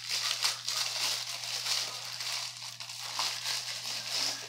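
Crinkling, crackling plastic packaging of a new toothpaste tube being pulled and bitten at to tear it open.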